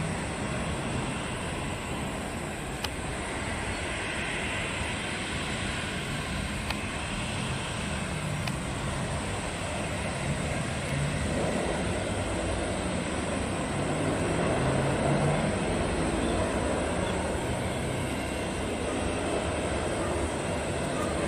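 A jet airliner's engines rush steadily as it lands and rolls out along the runway, growing louder about halfway through.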